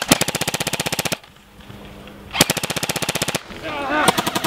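Airsoft electric guns firing full-auto: a rapid, even rattle of shots in two bursts of about a second each, a short pause between them, and a third burst starting near the end.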